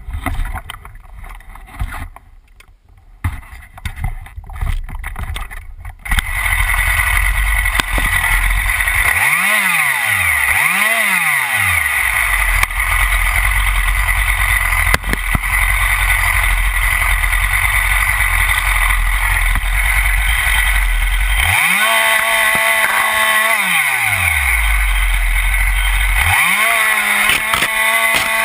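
Husqvarna 346XP two-stroke chainsaw. Irregular knocks and rattles for the first few seconds, then the engine starts about six seconds in and idles. It is blipped up twice, then held at full throttle cutting scrub for a couple of seconds about two-thirds through, and again near the end.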